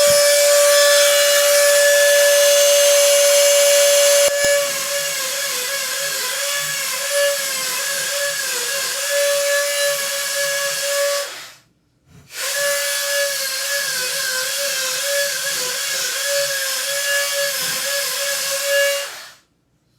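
A Dremel-style rotary tool with a diamond bit gives a high, steady whine. About four seconds in, the pitch starts to waver and dip as the bit grinds into the metal holding the lock cylinder. It stops briefly a little past halfway, starts again, and cuts off shortly before the end.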